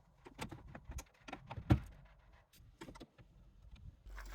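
Irregular clicks and knocks of hand tools on metal car body parts during disassembly, with one louder knock about one and a half seconds in. Just before the end, a steady low hum comes in.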